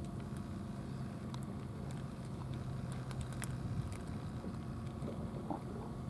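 Cats eating dry kibble from plastic trays, with scattered small crisp crunches and clicks, over a steady low mechanical hum.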